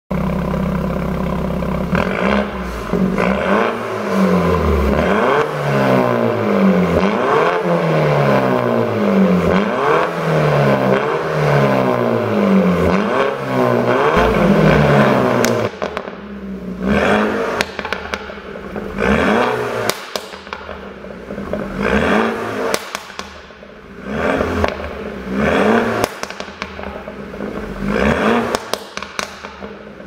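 2017 BMW 320i's turbocharged four-cylinder engine with a pop-and-crackle exhaust tune, heard at the tailpipe. It idles briefly, then is revved up and down over and over. About halfway through it changes to single throttle blips every couple of seconds, each followed by popping and crackling from the exhaust as the revs fall.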